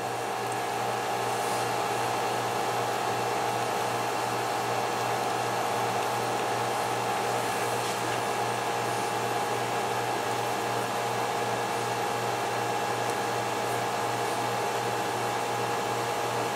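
Steady machine hum with a constant whine, like a fan or air-conditioning unit running, growing slightly louder in the first second and then holding level.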